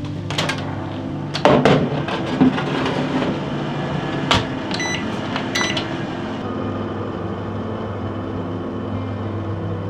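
Countertop oven being loaded: its door opens and a baking tray clatters in with several knocks, the door shuts with a sharp click a little past four seconds in, and the control panel gives two short electronic beeps about a second apart as it is set for baking.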